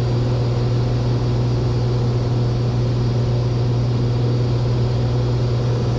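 Steady drone of a Cessna 182's piston engine and propeller in level cruise, heard from inside the cabin, a strong low hum that holds constant.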